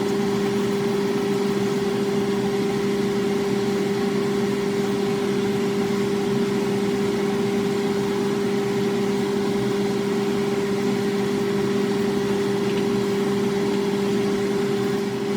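A steady machine hum of two low, unchanging tones over a faint hiss, with no change or break.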